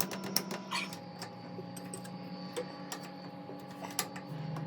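Metal clicks and taps of an open-end wrench and a spark plug being worked loose and handled, a cluster in the first second and a few more about four seconds in, over a faint steady hum.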